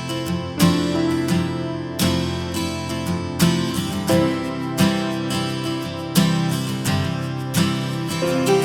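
Background music: acoustic guitar playing a plucked, strummed tune with a steady pulse.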